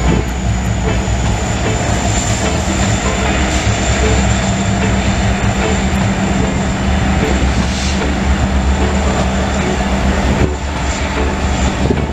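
Diesel locomotives of a CN freight train passing close below, their engines running with a steady low hum, with a constant high whine above it.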